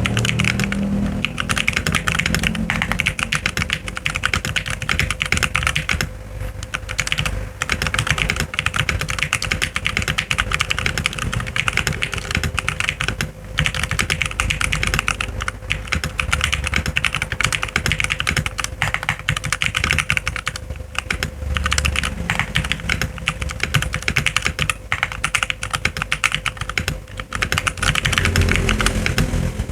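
Continuous fast typing on a Rexus Legionare MX10 mechanical keyboard fitted with lubed Outemu Brown tactile switches, Tecware Pudding PBT keycaps and PE case foam: a dense stream of keystroke clacks broken by a few short pauses.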